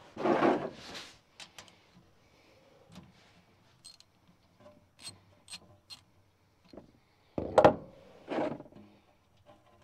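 Ratchet and socket working the 17 mm engine oil drain plug loose on a Kawasaki Teryx4: scattered light metallic clicks and taps, with one louder knock about seven and a half seconds in.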